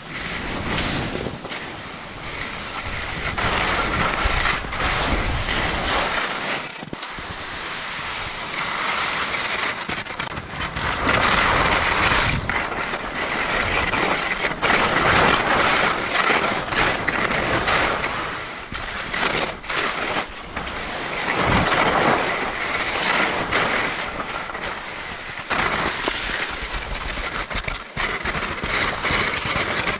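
Wind gusting over the microphone: a loud rushing noise with low rumbling buffets that swells and eases every few seconds.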